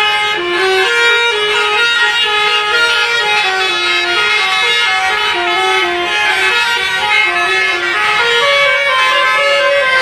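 A tour bus's basuri musical air horn playing a tune, one note stepping to the next every fraction of a second.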